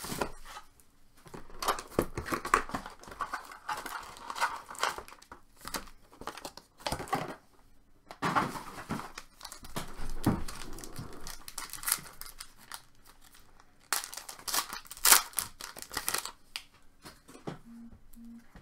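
Trading card packs being torn open and their wrappers crinkled, with cards handled and slid against each other, in irregular rustles and snaps.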